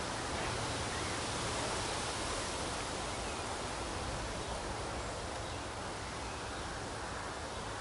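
Steady outdoor wind noise: an even hiss with a low rumble from wind on the microphone, with rustling vegetation.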